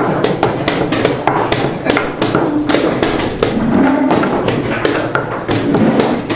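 Rapid wooden knocks of chess pieces being set down on the board and clock buttons being slapped, about three to four a second, in a blitz time scramble.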